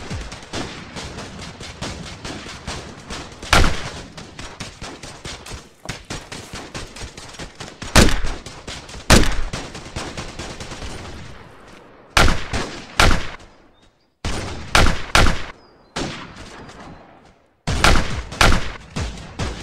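Handgun gunfire in a staged shootout: a dense, rapid fusillade with a few louder single shots standing out, then about ten separate shots, mostly in quick pairs and threes, each with a short ringing tail.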